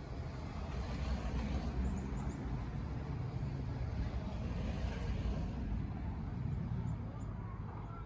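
Low rumble of a motor vehicle passing, swelling over the first second and fading near the end, with a few faint high bird notes about two seconds in and again near the end.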